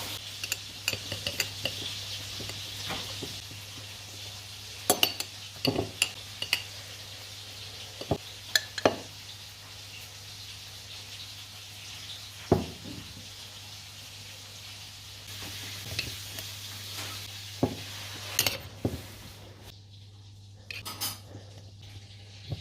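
Kitchen utensils clinking and knocking against pots and dishes, with a dozen or so sharp knocks scattered through. Underneath runs a steady hiss that comes and goes.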